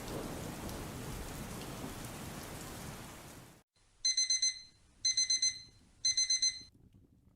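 A steady hiss of background ambience cuts off suddenly about three and a half seconds in. Then a digital timer alarm beeps in three bursts a second apart, each of about four quick high beeps, marking the end of a 25/5 Pomodoro interval.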